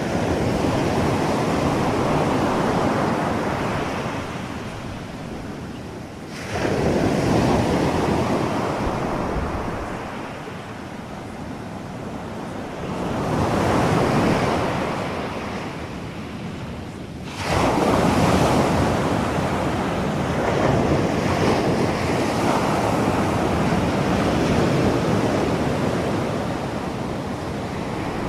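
Rushing sound of ocean surf that swells and fades several times, two of the swells setting in suddenly.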